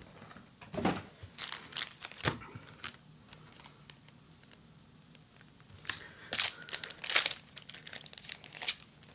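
Trading-card booster pack wrapper crinkling and tearing as the pack is opened: a cluster of sharp rustles, a quieter stretch, then another cluster of crinkles in the second half.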